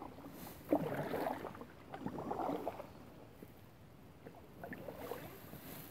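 Paddle blades dipping into and pulling through calm river water beside an inflatable kayak: three splashy strokes, the third after a longer pause.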